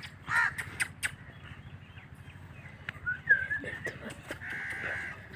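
Animal calls: a short call near the start, a rising call about three seconds in, and a longer drawn-out call near the end.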